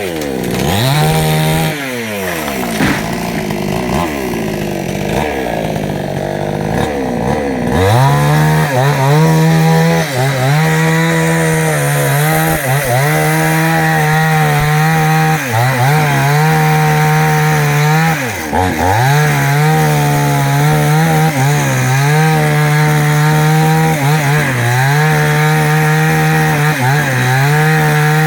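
Two-stroke chainsaw cutting into a jackfruit tree. For the first several seconds the engine runs at lower, wavering revs. From about eight seconds in it runs at high revs, its pitch dipping briefly every two to three seconds as the chain bites into the wood and bogs.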